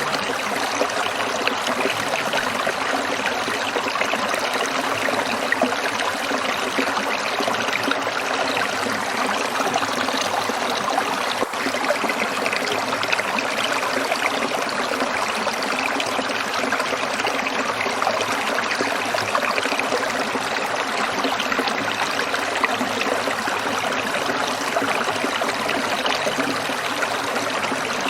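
Shallow stream water trickling and babbling steadily, an even, unbroken rush.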